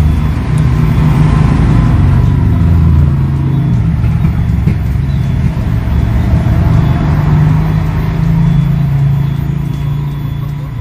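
A motor vehicle engine running: a steady low rumble that swells a second or two in and again later on.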